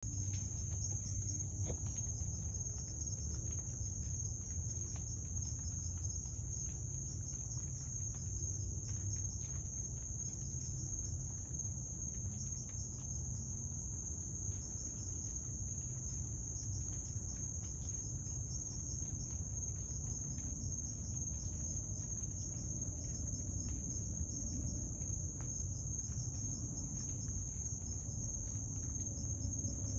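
A chorus of crickets: a steady, unbroken high-pitched trill, with a low rumble underneath.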